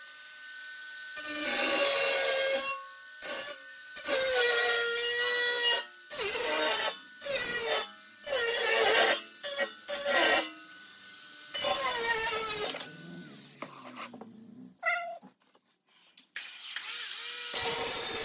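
A power tool whining as it cuts metal for the bracket, in several passes separated by short breaks. The pitch dips and bends as the tool is loaded in the cut. It goes almost quiet for a couple of seconds late on, then starts again.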